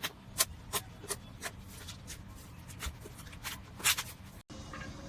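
Slime being handled, giving a run of sharp crackling pops about two or three a second. Near the end the sound cuts off abruptly and a quieter, steadier hiss follows.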